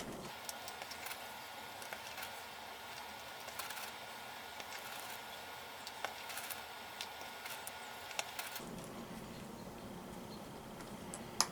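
Scattered light clicks and taps of .177 pellets being pressed head first into the Crosman Vigilante's six-shot pellet clip, with a sharper click near the end.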